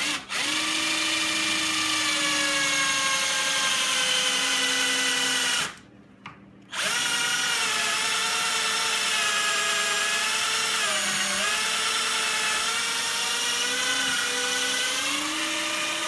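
Power drill boring a pocket hole through a Kreg pocket-hole jig into an oak chair post: a steady whine that stops for about a second, then starts again. Its pitch dips briefly once partway through as the bit bites.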